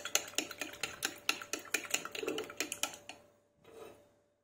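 Fork or whisk beating the egg mixture in a bowl: fast, even clicking of metal against the bowl, about seven strokes a second, stopping about three seconds in.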